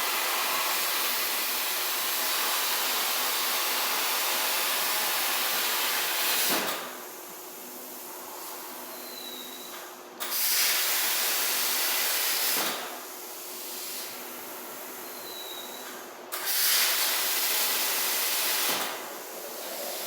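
CNC plasma torch cutting: the arc's loud steady hiss stops with a click about six seconds in, then starts and stops twice more, each cut lasting two to three seconds, with quieter hissing air in between.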